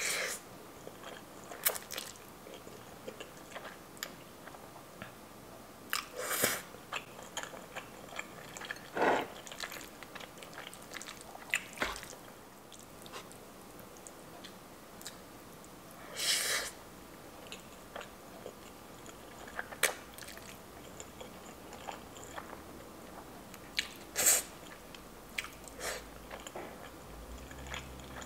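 Close-miked eating of spaghetti: soft chewing, broken by short, louder noodle slurps and mouth sounds every few seconds.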